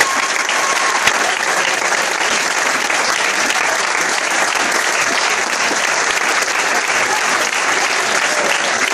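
A crowd of people clapping steadily and densely.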